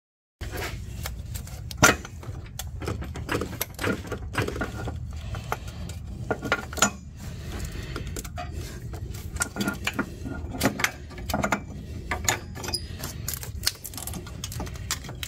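Irregular metallic clinks, knocks and scrapes as a loosened water pump is worked loose by hand among surrounding brackets and hoses, over a steady low hum.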